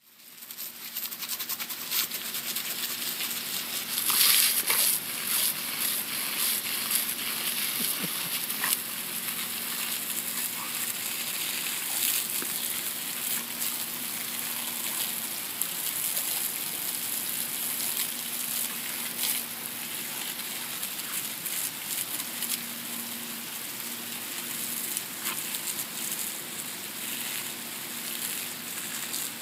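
Garden hose jet spraying onto grass, a steady hiss that swells louder about four seconds in, broken by scattered sharp splashes and clicks as a dog bites at the stream.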